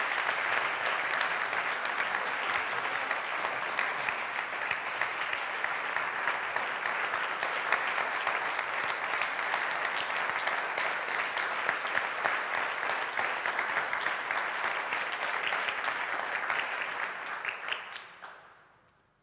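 An audience applauding steadily, the clapping dying away near the end.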